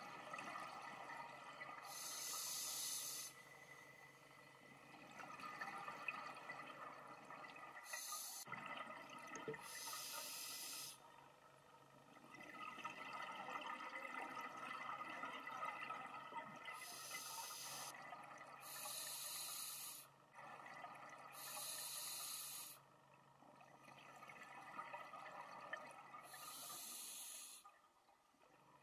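Scuba diver breathing through a regulator underwater, faint: short hissing inhalations every few seconds, about seven in all, alternating with rougher bubbling exhalations.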